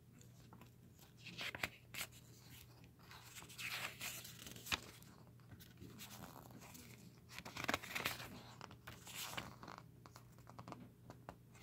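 Pages of a glossy booklet being turned and handled: faint, scattered paper rustles and swishes with a few small clicks, over a steady low hum.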